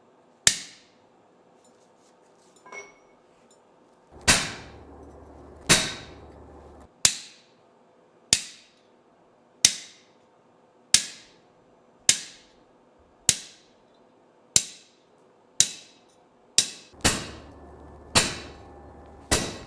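Hand hammer striking a chisel to cut a straight vein into a hot steel leaf on the anvil: about fifteen sharp metallic blows, each with a short ring, in a steady rhythm of roughly one every second and a quarter after a lone opening blow.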